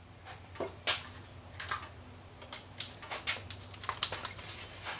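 Light, irregular clicks and taps of a hand tool on metal as the 10 mm nuts on the fuel filter mount are loosened, sparse at first and coming several a second from about three seconds in.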